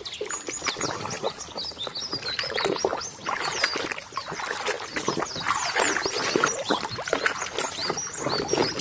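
Water splashing and sloshing as a muddy toy is washed in water, with birds chirping.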